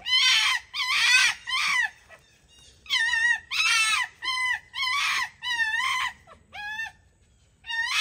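Foxes screaming at each other in a squabble over a food bowl: a run of high, wavering screams, about two a second, three at first, then after a short pause about eight more.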